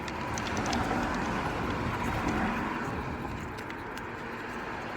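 A few light metallic clinks and ticks, the sharpest in the first second, as a coolant temperature sensor is unscrewed by hand and its replacement threaded in. A steady background hiss runs under them.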